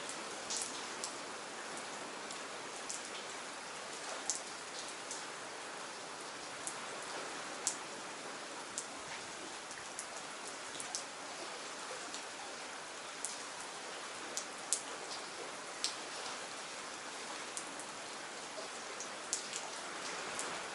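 Steady rain falling, an even hiss with individual raindrops landing close by as scattered sharp ticks.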